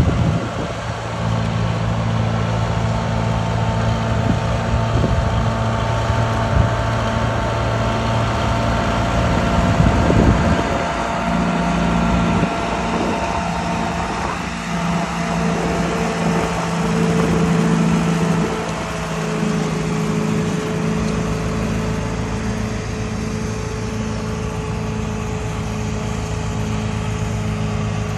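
Case 730 tractor's four-cylinder gas engine running steadily as the tractor drives. Its note shifts a couple of times, about a third and two-thirds of the way through.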